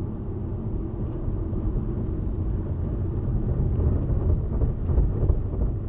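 Steady low rumble of a car driving along a highway, road and engine noise heard inside the cabin.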